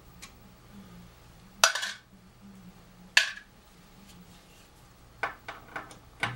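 Sharp metallic clinks from a screwdriver and small screws being handled against a CD player's metal chassis while the T20 screws holding the drive mechanism are undone. Two loud clinks about a second and a half apart, then a quick run of lighter clicks near the end.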